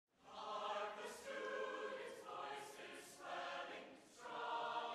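Many voices singing together in held notes, fading in at the start.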